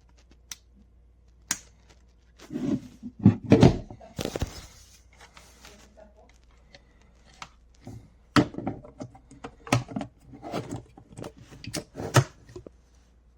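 Irregular handling noises: clicks, knocks and brief rustling in two bursts of activity, with no drill motor running.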